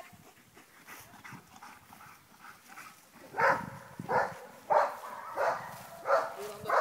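Dog barking in a steady series, about one bark every two-thirds of a second, starting about halfway in.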